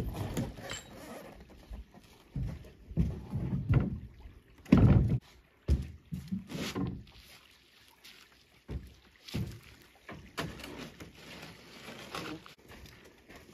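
A canoe being handled on the shore: the hull is flipped over and set down with a series of thuds and knocks, the loudest about five seconds in, followed by lighter bumps and scrapes as it is slid toward the water.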